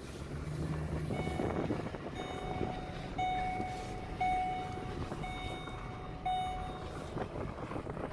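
A repeating electronic warning beep, about one a second with each beep under a second long, over a steady rumble of engine and wind noise.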